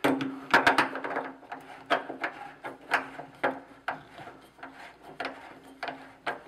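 Element wrench clicking and scraping as a screw-in electric water heater element is turned loose in its threaded tank fitting. A dense cluster of sharp clicks comes first, then irregular clicks and knocks every half second or so.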